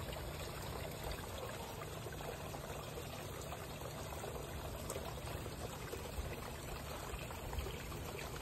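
Water running steadily into a garden pond: a continuous, even trickling and splashing.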